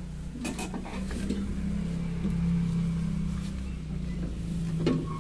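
Bus engine idling steadily, with a few light knocks in the first second or so.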